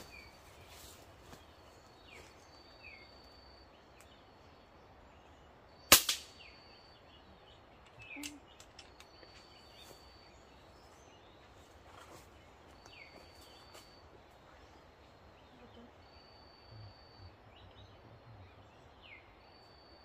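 One sharp, loud crack about six seconds in, the hunter's shot, with a smaller knock right after it. Behind it, birds call quietly: a short high whistled note repeats every two to three seconds, mixed with brief falling chirps.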